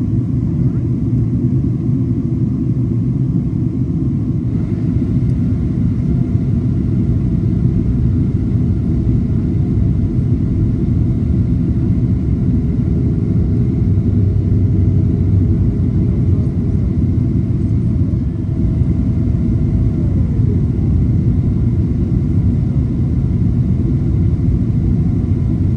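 Steady cabin rumble of a Boeing 777-300ER airliner in cruise: a deep, even roar of engine and airflow noise. A faint higher hum joins a few seconds in and slides down in pitch about twenty seconds in.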